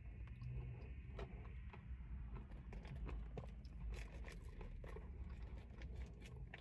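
Faint eating sounds: a spoon repeatedly clicking and scraping as it digs into a cup of frozen dessert layered with crunchy cookie pieces.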